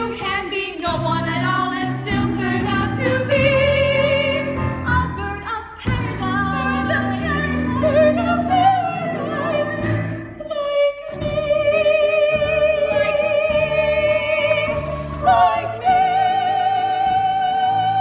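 Several women singing a musical-theatre number together over instrumental accompaniment. The voices move through a phrase and then hold long, high notes with vibrato over the second half.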